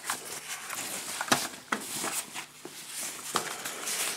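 Rustling and crinkling of a white protective wrapping sheet being handled and pulled off a mechanical keyboard, with a few light knocks and clicks.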